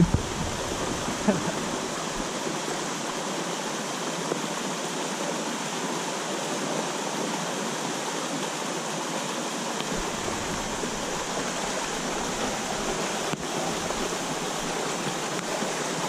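Steady rush of a small waterfall pouring through a gap in a rock ledge and churning into the pool below.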